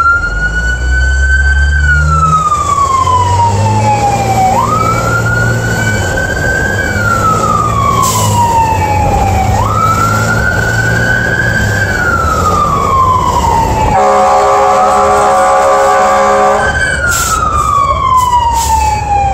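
Fire truck siren wailing, heard from inside the cab: each cycle jumps up quickly, climbs a little and then slides down, about every five seconds. About two-thirds of the way through, the wail gives way to a steady horn blast of several tones lasting nearly three seconds, then resumes. The truck's engine runs underneath.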